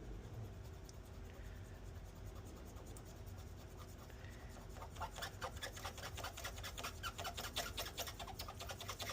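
Quick, closely spaced light scrubbing strokes start about five seconds in, as liquid metal thermal compound is rubbed into a metal contact surface to work through oxidation so it will stick. Before that there is only a faint steady hum.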